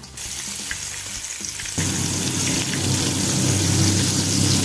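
Flour-coated stuffed artichokes frying upside down in hot olive oil, a steady sizzle and crackle as their tops are sealed. The sizzle grows louder about two seconds in.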